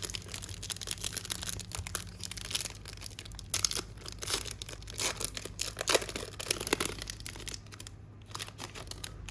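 A baseball card pack's wrapper being torn open and crinkled by hand: a run of quick crackles and rustles that thin out near the end.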